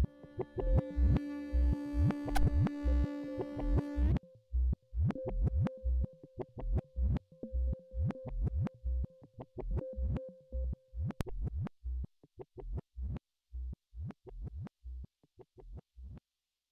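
Electronic synthesizer background music with a steady beat of about two strikes a second. Held synth chords drop out about four seconds in, leaving a single held tone over the beat, and the music fades away near the end.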